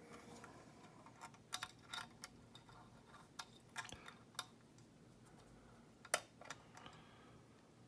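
Faint, irregular metallic clicks and ticks of a pick wire working the levers inside a large lever padlock held under tension, the sharpest click about six seconds in.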